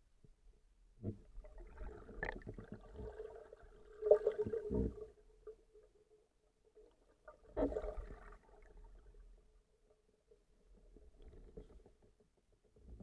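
Muffled underwater sound picked up by a submerged camera: scattered knocks and gurgling, loudest about four seconds in, over a faint steady hum.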